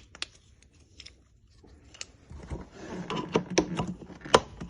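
Short, sharp plastic clicks and handling rattles as a Milwaukee Packout replacement latch and its clasp are worked together by hand. The clicks are few at first, then come thicker in the second half, with one louder click near the end.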